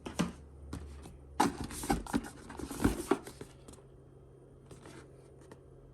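Hands rummaging in a cardboard box of packed accessories: rustling and light knocks of packaging and parts being lifted out, busiest in the first three seconds, then dying away to a low hum.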